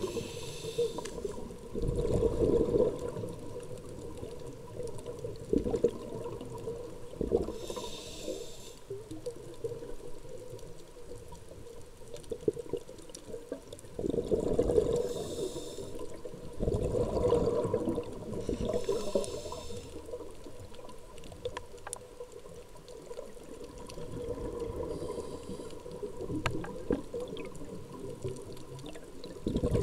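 Scuba regulator breathing heard underwater: slow rushing breaths every few seconds and several bursts of bubbling exhaust, over a faint steady tone.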